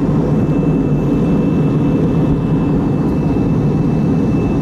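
Airliner cabin noise in flight: a steady low rush of engines and airflow, with a thin steady high-pitched tone over it.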